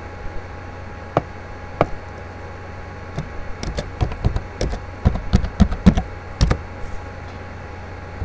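Irregular clicks and knocks of typing on a laptop keyboard, a few single strokes and then a quick run of about a dozen between three and seven seconds in, over a steady low electrical hum.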